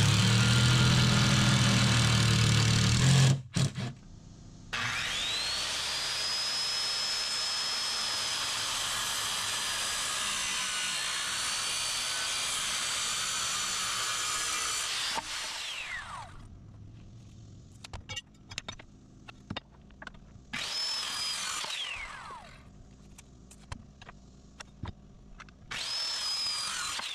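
A cordless drill drives a screw into wood for about three seconds. Then a Skilsaw circular saw spins up with a rising whine and cuts through a wooden board for about ten seconds before winding down. It then makes two short cuts across the board, each spinning up and dying away.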